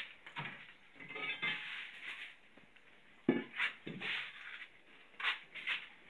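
Irregular knocks and scrapes of a length of wood being handled against a concrete block wall and window frame, with one sharp knock about three seconds in.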